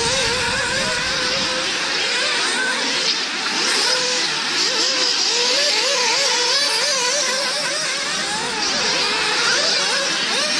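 Several nitro RC buggies' small glow-fuel engines racing together, their pitch repeatedly rising and falling as they accelerate and back off around the track.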